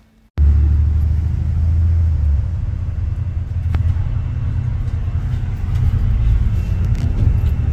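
Steady low rumble of a double-decker bus in motion, heard from inside on the upper deck, with a couple of faint clicks and rattles.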